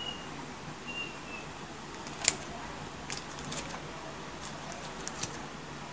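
Kitchen scissors cutting through a slab of fried fish cake: a handful of sharp snips and clicks, the loudest about two seconds in.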